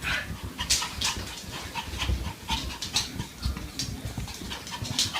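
A dog panting, with breaths about twice a second over a low rumble and soft thumps.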